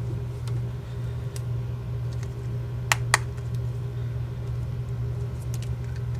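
Light clicks and taps of small plastic parts and connectors being handled, with two sharper clicks close together about three seconds in, over a steady low hum.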